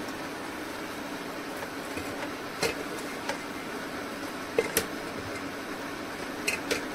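Steady hiss of a pot of mutton cooking on a gas stove, broken by a few light clicks about three seconds in, near five seconds and twice near the end.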